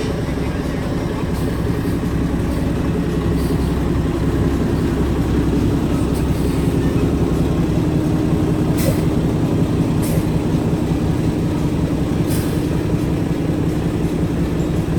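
Heavy vehicle engine running steadily, like a truck, with a few brief sharp sounds over it in the second half.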